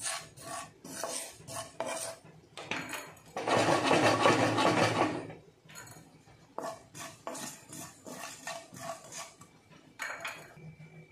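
Wooden spatula stirring and scraping carom seeds (ajwain) as they dry-roast in a pan: quick rasping strokes, about two or three a second, with a longer, louder rush of scraping seeds from about three to five seconds in.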